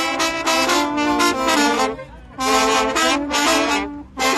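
Trombones and trumpets of a Durango tamborazo brass band playing loud melodic phrases, with a brief break about two seconds in and another near the end.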